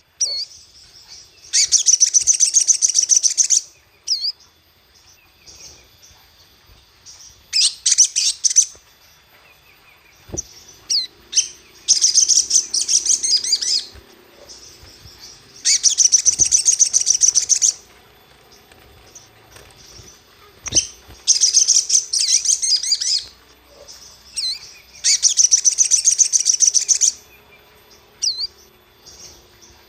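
Sogon (sogok ontong) songbird singing: high-pitched rapid trilled phrases about two seconds long, six of them, with short single chirps in between. It is a provoking song of the kind played to stir a caged bird to answer.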